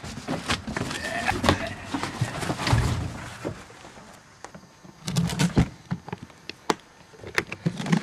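A string of irregular thumps and sharp knocks from people clambering about inside a steel dumpster and climbing out over its wall.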